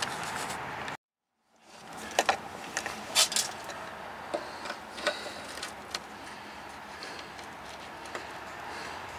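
After a brief dropout, scattered light metallic clicks and taps of hand tools, pliers among them, working at a brake line fitting under the car, over a steady background hiss.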